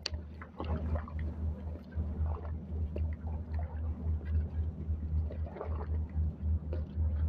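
Seawater sloshing and gurgling against the pilings, over a steady low rumble.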